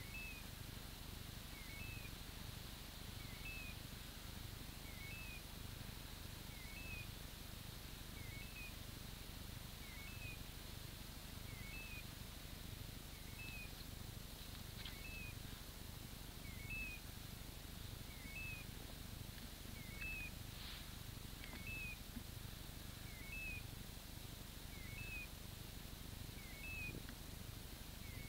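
A dog's electronic beeper collar sounding a short two-note chirp at a very even pace, about every second and a half, the repeating point-mode signal that the Gordon setter is standing on point. Low, rhythmic thuds of walking run underneath.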